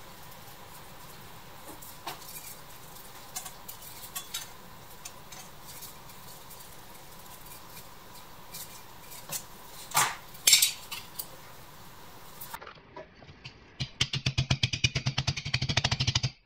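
Light metal clicks and taps from handling a thin pressed-steel toy part and a steel rule on a steel bench block, then near the end a fast run of hammer taps, about eight a second, shaping the sheet-steel part against the block.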